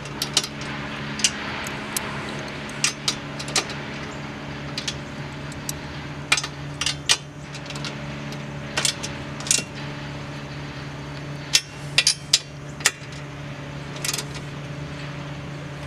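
Half-inch socket wrench tightening the nuts on a foot pedal's 5/16-inch carriage bolts: scattered metallic clicks and clinks, some in quick pairs, over a steady low hum.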